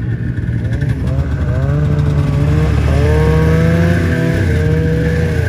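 Snowmobile engine running under way, rising in pitch as it accelerates, holding steady, then easing off near the end.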